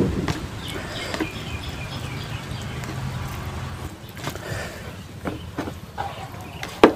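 Fingers mixing rice with crumbled fried egg on a plate: soft rustling and scraping with scattered small clicks against the plate, and one sharper click near the end.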